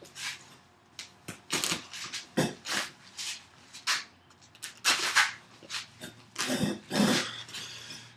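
A man's short angry grunts and growls, scattered and separated by pauses, with rustling in between.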